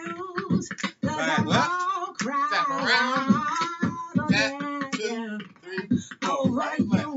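Recorded R&B song playing: a woman singing a melodic line over a beatboxed rhythm of short mouth-made kicks and snares.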